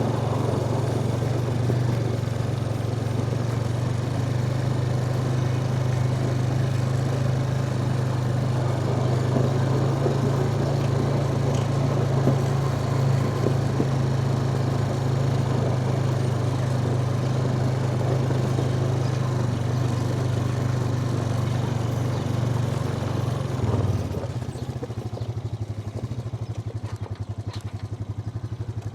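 A farm vehicle's engine runs steadily under a rumble of mechanical noise. About 24 seconds in it throttles down to a quieter, evenly pulsing idle.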